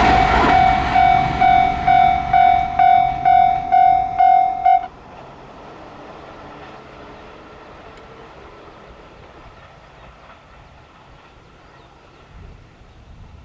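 Japanese railway level-crossing alarm ringing in a steady ding-ding rhythm, about two strokes a second, over the fading noise of a passing train. The alarm cuts off suddenly about five seconds in, leaving faint outdoor background.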